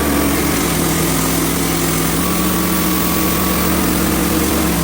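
Small gas engine of a Hudson HFE30 portable bandsaw mill running steadily under load as the band blade saws through a log. The blade is a resharpened one that is dull and cutting a wavy board.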